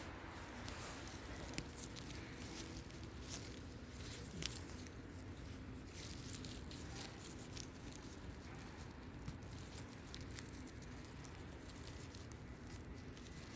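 Crackling and rustling of leaf litter and twigs, with a steady low rumble of wind on the microphone and a sharper snap about four and a half seconds in.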